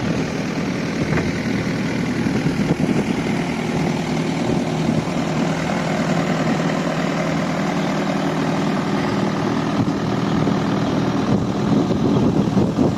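Fishing boat's inboard engine running steadily, an even drone that neither rises nor falls.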